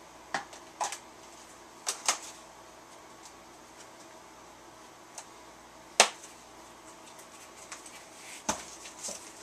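A cardboard mailer of comics being handled and opened by hand: a few sharp clicks and knocks, the loudest a single snap about six seconds in, with rustling near the end.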